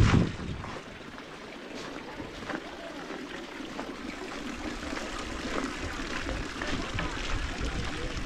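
Steady outdoor hiss with a low rumble from light wind on the microphone, with a few faint, irregular clicks.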